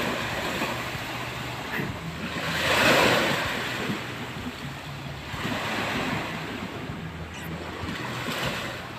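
Small waves breaking and washing up on a sandy shore, the surf swelling louder about three seconds in and again around six seconds.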